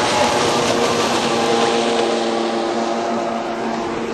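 Bayliner 1750 motorboat's engine running steadily under way, a constant drone over water rushing past the hull, easing slightly toward the end.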